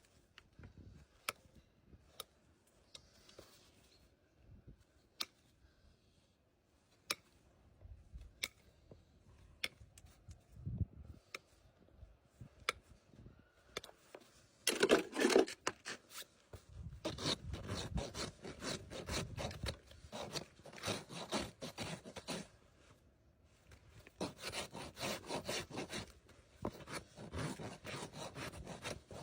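Farrier's rasp filing a horse's hoof wall in rapid back-and-forth strokes, in two long spells with a short pause between them. Before that, about halfway through, there are only scattered sharp clicks.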